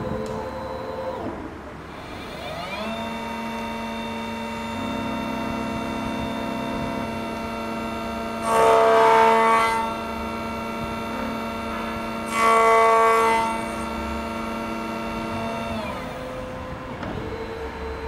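Key cutting machine cutting a Ford FO21 Tibbe key blank. The cutter spindle whines up to speed a couple of seconds in and runs steadily, with two louder stretches of about a second each in the middle as it cuts into the blade. It winds down near the end, with a short whir of the carriage moving at the start and end.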